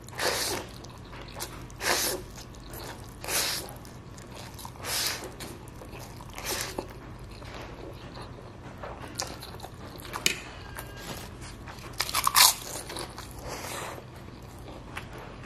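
Close-miked slurping of fried instant noodles (Indomie goreng) forked up in big mouthfuls, about five slurps a second and a half apart. Then comes chewing with a few sharp clicks and crunchy bites, the loudest near the end.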